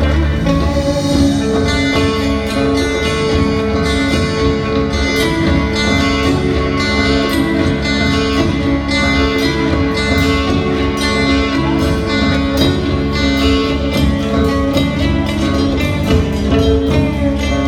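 Indian fusion rock band playing live, an instrumental passage with guitar to the fore over a steady beat.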